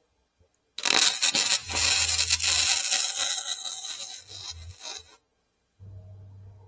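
Electric arc welder crackling through one weld bead of about four seconds on thin sheet-metal windmill parts, at a turned-down heat setting, then cutting off. A fainter low hum follows near the end.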